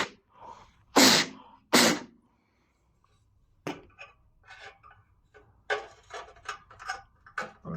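Two short, sharp puffs of air blown through a gas boiler's pilot injector to clear dust from its tiny jet. From about halfway on come light clicks and clinks of small metal parts and tools being handled.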